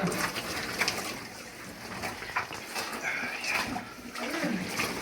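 A caver squirming through a tight, muddy crawlway: irregular scuffs and scrapes of body and gear against mud and rock, with faint muffled voices or grunts.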